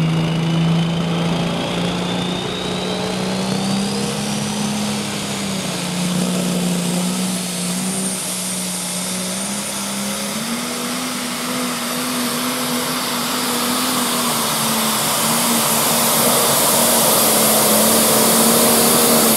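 A pulling tractor's turbocharged diesel engine runs at full throttle under load, with the engine note climbing gradually in pitch. A thin turbo whistle rises steadily over the first several seconds and then holds high. The sound gets louder near the end as the tractor comes past.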